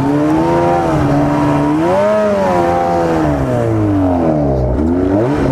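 Arctic Cat ZR 800 snowmobile's two-stroke twin engine running under throttle, its revs rising and falling as the sled carves. About four to five seconds in the revs sink as the engine briefly loses power and bogs.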